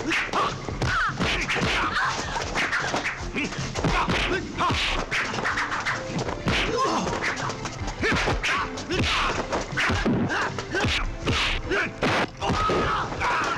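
Kung fu film fight sound effects: a rapid string of dubbed punch and kick whacks and thuds with swishing blows, several each second, without a break.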